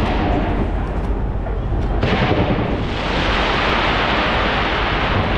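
Skyscraper fireworks going off in a continuous rumble of booms. About two to three seconds in, a brighter, dense hissing crackle swells over the rumble.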